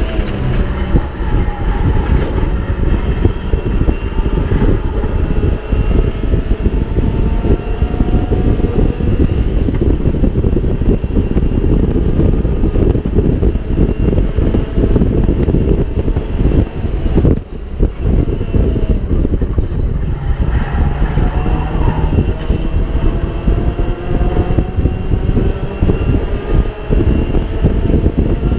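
Onboard sound of a Mazda MX-5 race car's four-cylinder engine at racing speed. The pitch climbs and falls repeatedly as the car accelerates, shifts and brakes, with a brief drop about seventeen seconds in.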